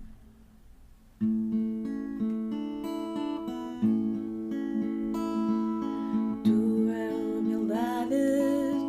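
Acoustic guitar starts playing held chords about a second in, the opening of a hymn. Near the end a voice begins to sing over it.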